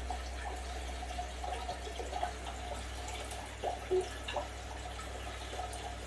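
Water trickling and dripping in a running home aquarium, with small scattered bubbling plinks over a steady low hum.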